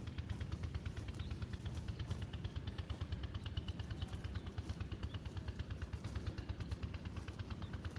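A small engine running steadily with an even, rapid thudding of about ten beats a second.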